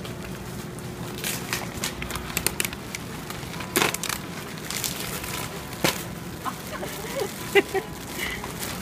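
Brown paper and plastic wrapping rustling and crinkling as a parcel is unwrapped by hand, with irregular sharp crackles, a few of them louder.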